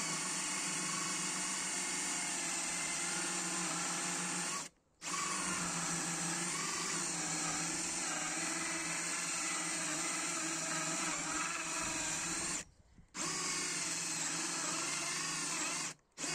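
DeWalt DCD777 20V cordless drill running on its high speed setting, boring into wood with a dull hole saw. The motor runs steadily under load with its pitch wavering as the blunt saw bites, and stops briefly three times, about five, thirteen and sixteen seconds in, before starting again. The hole saw has no edge left, so the drill is struggling to cut.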